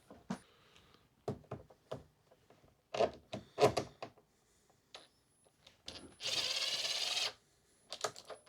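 Knocks and clunks of the electric unicycle being handled and turned over, then about a second of dense, rapid tool noise as the last screw is driven in.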